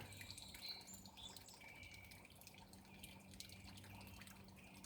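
Near silence: a faint steady low hum with faint water dripping.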